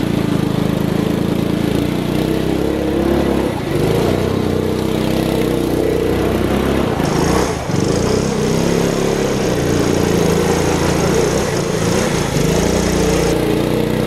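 The small gas engine swapped into a Power Wheels Mustang, revving up and down as the toy car is driven hard across grass.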